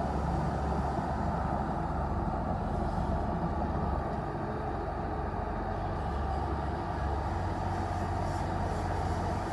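Bulldozer's diesel engine running steadily with a deep rumble while the machine pushes soil.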